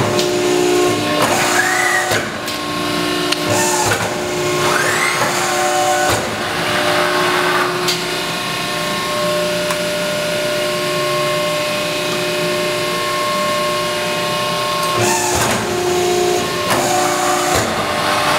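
Cincinnati 135-ton hydraulic press brake running: its hydraulic pump gives a steady hum, with several knocks and short whines that rise and fall as the ram is cycled.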